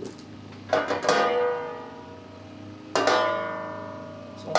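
Background music: plucked-string chords, struck about four times, each ringing out and fading.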